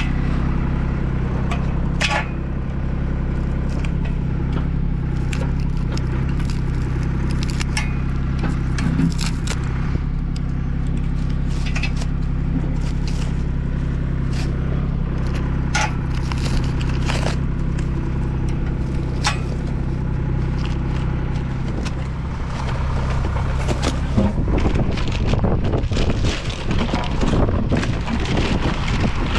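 Clicks, scrapes and crinkling plastic as solar rack hardware and a pump part are handled and unwrapped, over a steady low engine hum. Near the end, wind gusts on the microphone.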